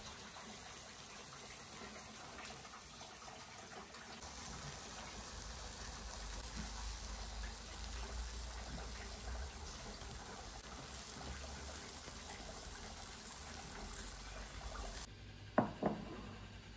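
Chicken tikka skewers sizzling over a charcoal grill, a steady hiss, with a low rumble of wind on the microphone joining from about four seconds in. The hiss cuts off suddenly near the end, followed by two sharp knocks as a glass bowl is handled on a kitchen worktop.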